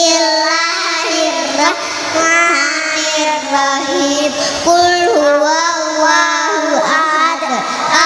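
A group of young girls chanting a short Quran surah together in a melodic recitation, with held, gliding notes, amplified through microphones.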